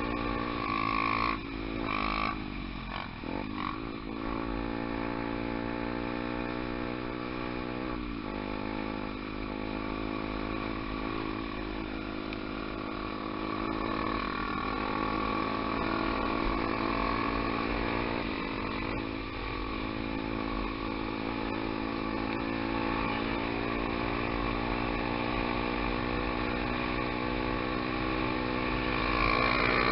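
Single-cylinder four-stroke trail motorcycle engine running under way, its revs dipping and climbing again a few times with throttle and gear changes, a few seconds in, about 8 seconds in and about 18 seconds in.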